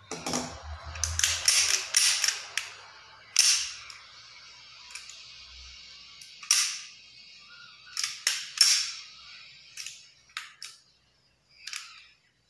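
Sharp metallic clicks and clacks from handling a Beretta-style pistol: magazine fitted and slide worked. About a dozen clicks come in irregular clusters, the loudest a little after 3 seconds and near 9 seconds.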